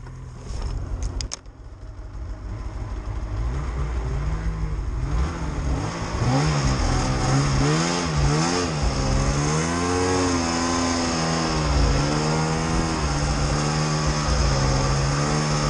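Snowmobile engine climbing in revs, its pitch swinging up and down as the throttle is worked through deep snow, then holding a steady pitch while the sled runs along. A few knocks come about a second in.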